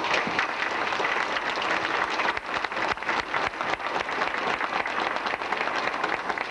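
A congregation applauding: many hands clapping in a dense, steady patter.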